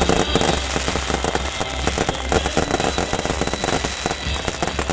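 Beehive fireworks firing in a dense, unbroken barrage of rapid bangs and crackles, hundreds of bottle rockets going off together.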